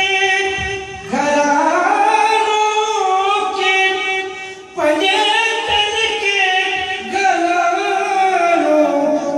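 A man sings a devotional song solo into a handheld microphone. His long held notes slide and waver between pitches, with fresh phrases starting about a second in and again near the middle.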